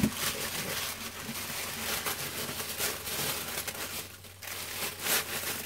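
Tissue paper rustling and crinkling as it is carefully unfolded from around a cardboard box, with a short lull about four seconds in.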